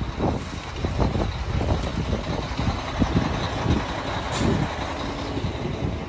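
A heavy truck's engine running at the curb amid street traffic, with a brief hiss about four seconds in and the thuds of footsteps and handling on the microphone.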